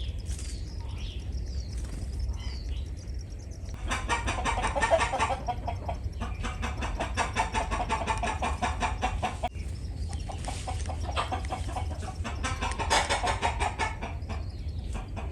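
Birds calling in fast, dense runs of short repeated notes that start about four seconds in and come in long stretches, over a steady low rumble.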